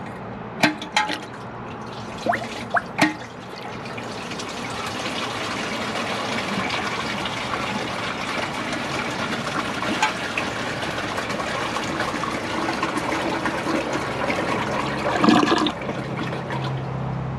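1977 Kohler Pompton lowboy one-piece toilet flushing: a few clicks at the start, then a quiet rush of water swirling down the bowl that builds over several seconds, with a short louder burst near the end.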